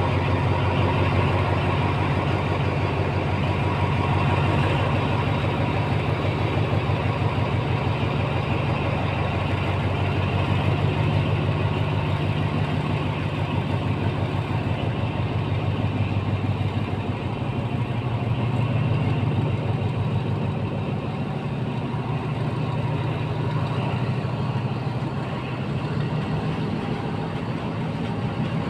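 Diesel-hauled passenger train rolling slowly past the platform, with a steady low engine drone.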